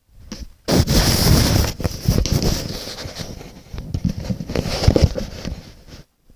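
Handling noise on the recording phone's microphone: loud rubbing, rustling and knocking as the phone is moved and covered. It starts suddenly about a second in and stops just before the end.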